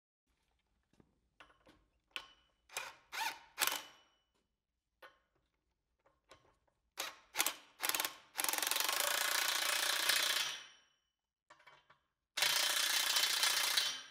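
A series of sharp metal clicks and clacks, then a cordless power tool with a socket running in two steady stretches of about two seconds each, tightening the nuts of a Victaulic Style 107 rigid grooved pipe coupling.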